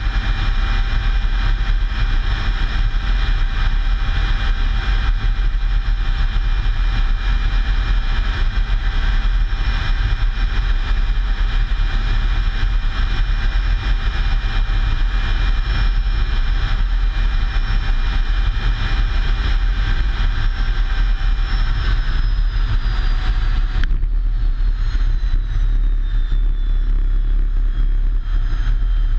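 Aircraft engines running: a steady loud rumble with several high whining tones, which begin to glide slowly down in pitch near the end.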